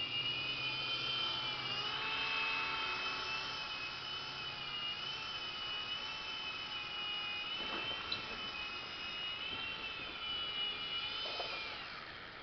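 Blade mCX2 micro coaxial RC helicopter in flight, its small electric motors and rotors making a steady high-pitched whine that wavers slightly in pitch. Near the end the whine drops in pitch and fades as the helicopter sets down.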